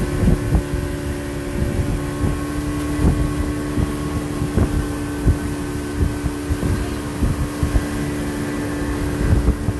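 A motor launch's engine running at a steady cruising pitch, with frequent irregular low thumps and some wind on the microphone.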